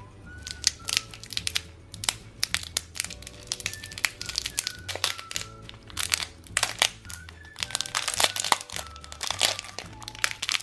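A thin clear plastic candy wrapper crinkling and crackling in a rapid, irregular run as it is peeled off a hard-candy lollipop. Background music with a simple melody and a bass line plays underneath.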